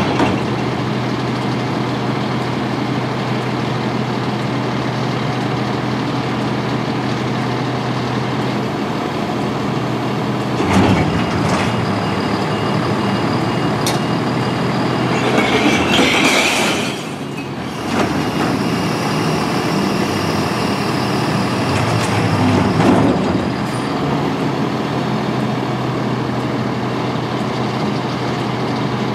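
Freightliner M2 garbage truck's diesel engine idling while the KANN recycler's hydraulic lifter tips a cart of glass. The engine speeds up about a third of the way in as the lifter rises, glass crashes into the hopper a little past halfway, and the engine speeds up again near three quarters through as the cart is lowered, then settles back to idle.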